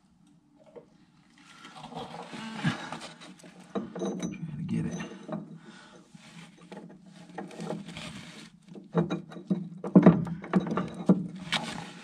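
Metal-on-metal clinking, scraping and knocking as hand tools and pins work in a dump truck tailgate's air-latch linkage. Sharp knocks come thicker and louder in the last few seconds.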